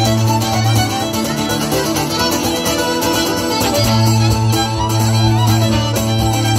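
Live Irish traditional music through a PA: fiddle, accordion and acoustic guitar playing a tune together with a steady rhythm. A low bass note drops out about a second in and comes back near the four-second mark.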